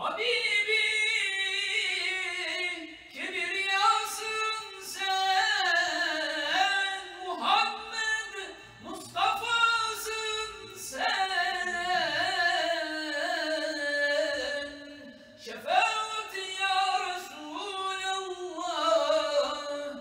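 A man singing solo and unaccompanied into a microphone, a religious chant in long held notes with rapid ornamental turns, each phrase sliding and wavering before it breaks off for a breath.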